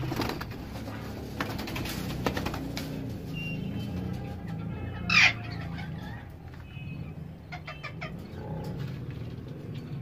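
Ringneck parrots calling in their breeding cages: one loud harsh screech about five seconds in, with scattered short chirps and clicks around it. A steady low hum runs underneath.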